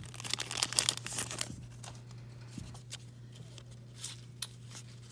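Baseball card pack wrapper being torn open and crinkled, dense crackling for the first second and a half, then fainter, sparser rustling as the cards are handled. A steady low electrical hum runs underneath.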